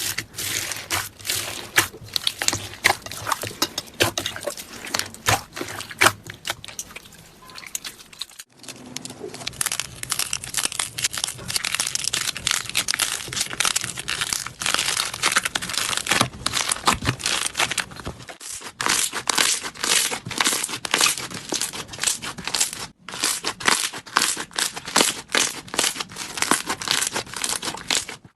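Slime being squeezed and pressed by hand, giving dense crackling and popping, broken by three brief pauses.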